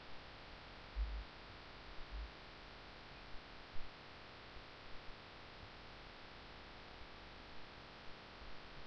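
Steady hiss and low electrical hum of a desk recording setup's background noise, with a few soft low thumps about one and two seconds in.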